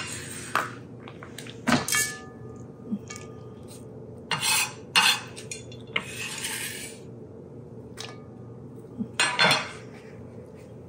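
A kitchen knife scraping chopped red onion off a cutting board into a large metal mixing bowl. Scattered short scrapes and clinks of metal, with a longer scrape about six seconds in.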